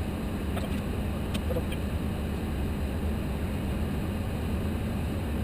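Steady cockpit noise of an Airbus A330-300 in flight on approach: a continuous low rumble with a rush of air, and a faint click about a second and a half in.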